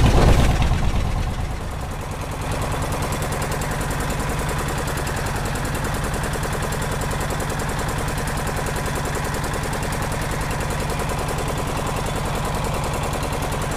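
Small wooden fishing boat's inboard engine running steadily under way, a rapid, even chugging.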